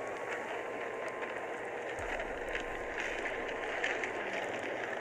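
Avalanche powder cloud sweeping past: a steady rushing noise with fine crackling through it, and a low rumble joining about two seconds in.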